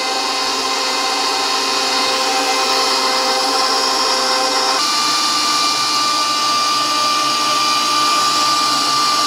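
Stand mixer motor running with a steady whine, its wire whisk whipping egg whites while hot sugar syrup is poured in to make Italian meringue. About halfway through the whine steps up slightly in pitch.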